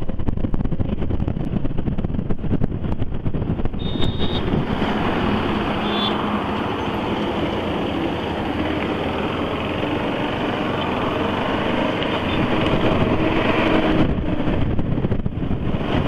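Motorcycle engine running at road speed, with wind buffeting the microphone. The buffeting is heavy in the first few seconds and again near the end, while a steadier engine note comes through in between.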